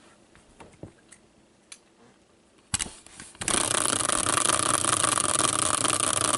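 A few faint clicks, a knock about three seconds in, then a caster wheel spinning freely on its axle with a loud, steady whirr that starts suddenly about three and a half seconds in.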